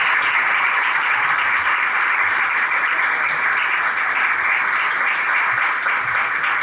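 Audience applauding steadily, a dense continuous clapping that thins a little near the end.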